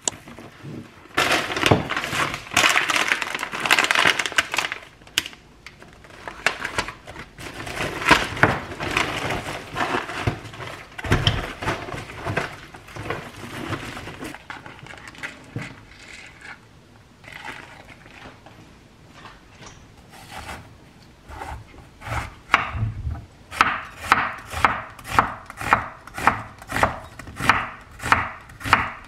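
Rustling and handling of an insulated grocery-delivery bag and its packaging. Then a kitchen knife slices an onion on a wooden cutting board, knocking steadily about twice a second near the end.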